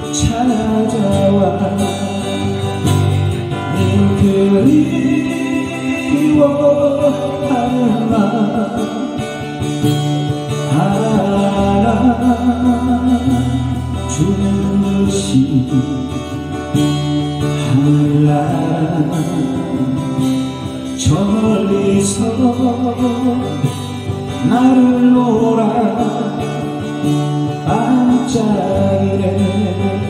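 Live acoustic duo: two steel-string acoustic guitars played together while a man sings, through microphones and a PA speaker.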